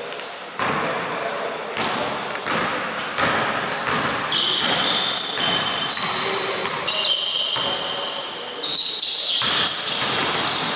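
Basketball being dribbled on a hardwood gym floor, the bounces echoing in a large sports hall. From about four seconds in, sneakers squeak repeatedly on the floor as players move.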